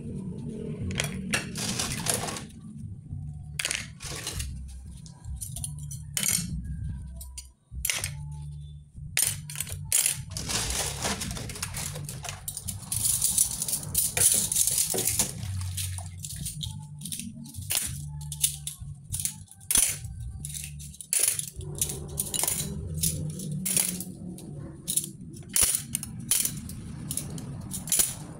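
Metal spoons and kitchen utensils clinking against each other and a stainless steel sink and tray as they are scrubbed with a soapy sponge: many sharp, irregular clinks with brief stretches of scrubbing.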